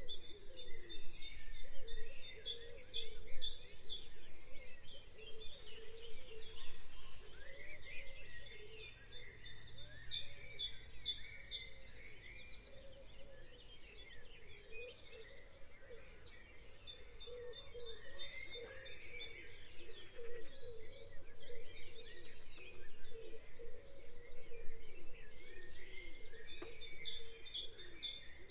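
Spring birdsong: several small songbirds singing and calling at once, with trills and rapidly repeated high notes, fuller at the start and again about two-thirds of the way through.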